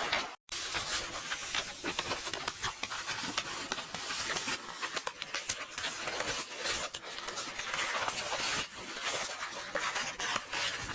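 Paper book pages rustling and turning: a dense, crackly rustle full of small crisp clicks, cut off by a brief total dropout just under half a second in.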